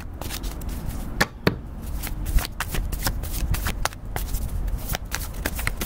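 A deck of tarot or oracle cards being shuffled by hand: a quick, irregular run of card snaps and flicks.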